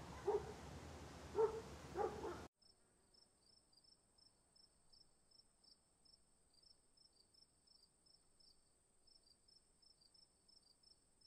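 Crickets chirping in an even pulsing rhythm, about three or four chirps a second, over a faint steady high trill. For the first two and a half seconds, three short loud sounds stand out over outdoor background noise, then that sound cuts off abruptly.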